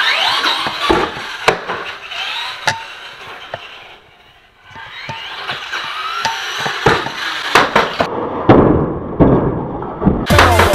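Electric motor of a Traxxas Slash 2WD RC truck, a 12-turn brushed motor on a 2S LiPo, whining up and down in pitch as the truck speeds up and slows. Hard knocks and clatter of the plastic truck landing and bumping over the ground run through it. Music comes in near the end.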